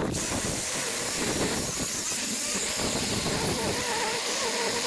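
A saw cutting through a tree branch at the branch collar, a steady rasping noise without a break.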